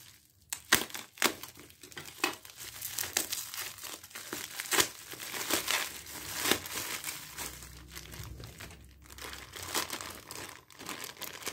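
Bubble wrap and a clear plastic bag crinkling as they are unwrapped by hand, with irregular sharp crackles.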